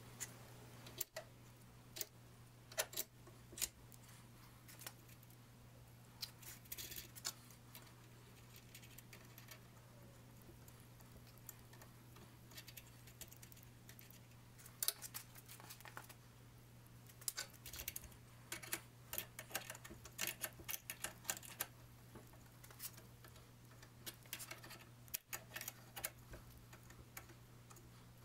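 Hand-cutting threads on a steel ball screw end with a 3/8-24 die turned by an adjustable wrench: irregular metallic clicks and ticks in short clusters as the wrench and die are worked around the shaft.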